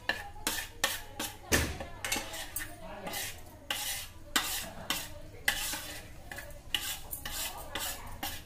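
Metal spoon scraping and clinking against a ceramic plate, pushing chopped onion and spices off it into a bowl. Irregular scrapes and taps, with one heavier knock about a second and a half in.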